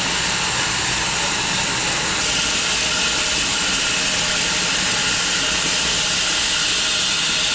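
Home-built 6 ft wide bandsaw mill running through an elm log: a steady, loud hiss of the blade in the cut, over the even drone of the machine.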